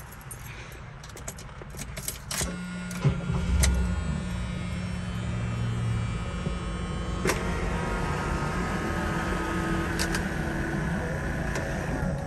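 A few sharp clicks about two to three and a half seconds in, then a steady mechanical hum inside the 1977 Cadillac Eldorado's cabin, with more clicks later.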